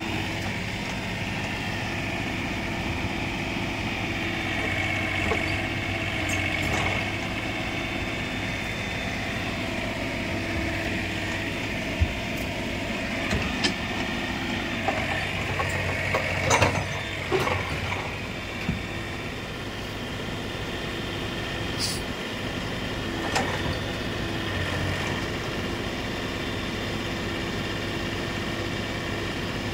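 Mini excavator's diesel engine running steadily under load as the machine climbs onto a dump truck bed, with a higher whine over the engine hum. Sharp metal knocks and clanks from the tracks and bucket come in the middle, several in quick succession, then a last one a few seconds later.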